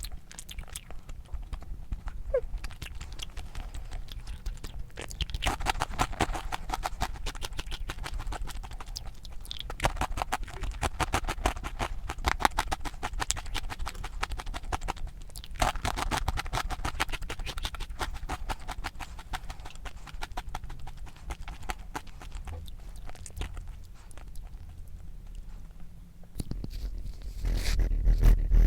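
Close-up crunchy chewing: runs of rapid crisp crunches, many a second, with short pauses between runs. It grows louder near the end.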